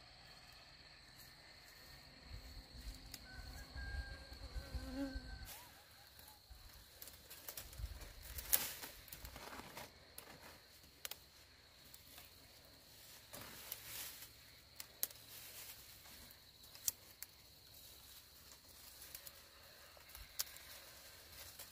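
A steady high insect drone, with scattered rustling of leaves and sharp snaps of stems from about six seconds in as young leaves are picked by hand from shrubs.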